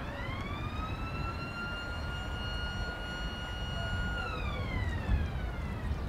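A high-pitched whine with several overtones rises over about a second and a half, holds steady, then falls away from about four seconds in, over a steady low rumble.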